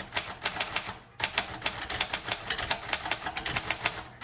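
A 1935 Royal Model O portable typewriter being typed on: a quick, steady run of key strikes, with a brief pause about a second in before the typing resumes.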